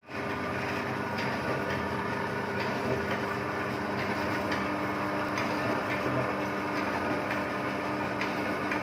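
Tissue folding and cutting machine running steadily: a constant mechanical hum with faint regular clicks that come in pairs, repeating about every second and a half.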